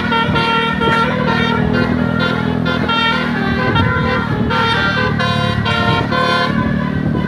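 Bus telolet horns: multi-tone air horns on passing buses playing quick melodic note runs, several tunes overlapping, over the low rumble of the bus engines.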